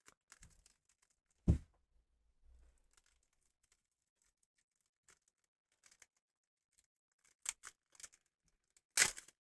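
Foil trading-card booster pack being torn open and handled: scattered faint rustles and clicks, a sharp knock about a second and a half in, and a louder tearing rustle near the end.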